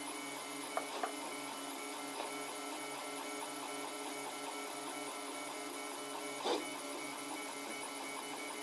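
3D printer running a print: its stepper motors whine steadily as the head and bed move, with a few light clicks.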